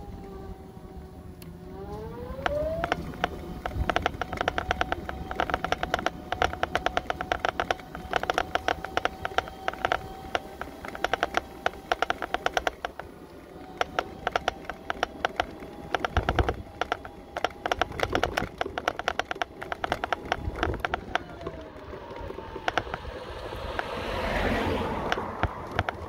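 Mobility scooter's drive motor whining as it rides: the pitch glides up about two seconds in as it speeds up, holds steady, then falls back near the end as it slows. A rapid clatter of clicks and knocks runs under it, and a rushing swell of noise comes near the end.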